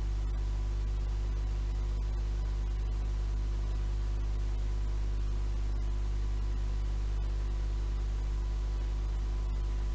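Steady mains hum with tape hiss from playback of an old 7-inch reel-to-reel tape, with no programme sound on it. The sound dips for an instant a few times.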